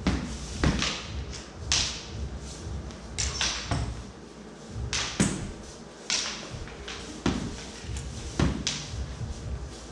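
Synthetic training swords clacking together in sparring: irregular sharp clacks, each ringing briefly in a large hall.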